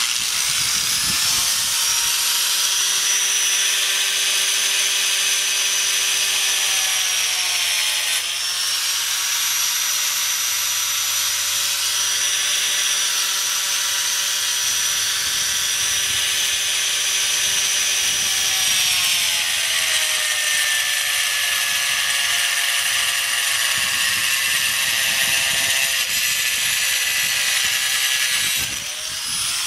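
Angle grinder with a diamond blade starting up and cutting across a fiber-cement (HardiePlank) siding board, with a high whine and grinding. Its pitch dips briefly about a quarter of the way in. About two-thirds through it drops and stays lower for several seconds as the blade is loaded in the cut, then rises again, with a short dip in level near the end.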